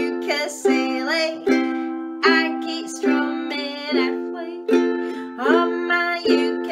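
Ukulele strummed in a steady rhythm, a chord a little more than once a second, with a woman singing along.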